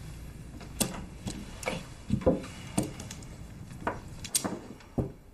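Mahjong tiles clacking on a wooden table and against each other: a string of sharp, irregular knocks, about two a second.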